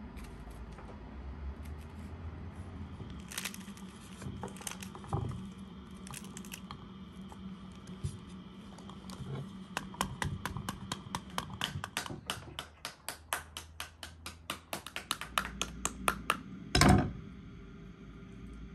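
Wooden spoon rapidly beating the back of a scored pomegranate held over a wooden bowl, knocking the seeds out: a fast, even run of knocks, about five a second, for some six seconds, ending in one louder thump. Before that, a few scattered clicks of a knife scoring the fruit over a wooden chopping board.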